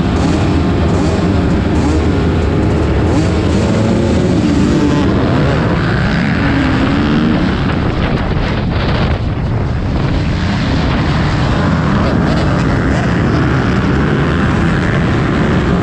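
Motocross bike engine revving hard, the pitch rising and falling through the gears, with wind buffeting the microphone; the revs ease off briefly a little past halfway.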